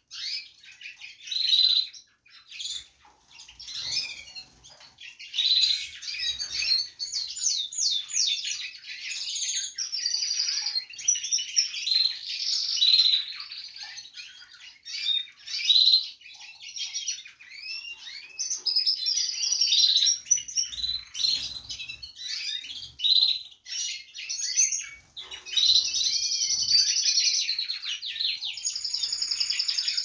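Canaries in an aviary singing and chirping: many overlapping quick chirps and fast trills from several birds at once.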